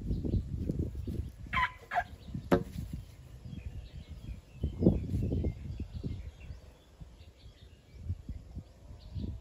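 Domestic fowl calling in a few short pitched bursts about a second and a half in, ending in a sharp note, over a low, uneven rumble that comes and goes. Faint small-bird chirps follow a few seconds later.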